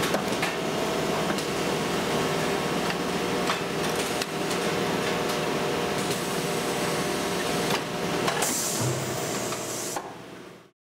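Factory machinery running: a dense mechanical clatter with irregular clanks over a steady hum. A burst of hiss comes about eight and a half seconds in, then the sound fades out.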